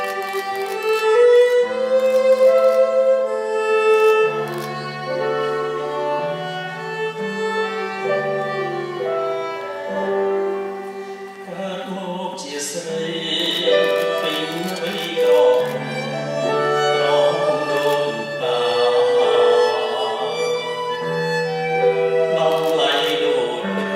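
Live ensemble music played for a Khmer dance: a bowed string instrument carries a slow melody over long held low notes. About halfway through, the texture grows fuller.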